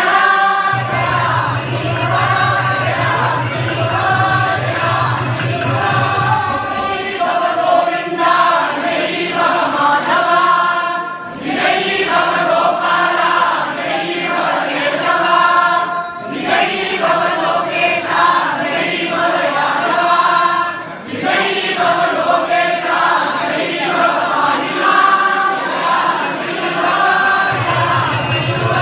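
Devotional chanting by a group of voices with music, in long phrases with short breaks between them. A steady low drone sounds under the singing for the first several seconds and again near the end.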